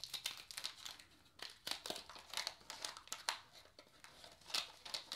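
Wax-paper wrapper of a vintage Topps trading-card pack crinkling as it is unfolded and the cards are pulled out, in a quick, irregular run of crackles.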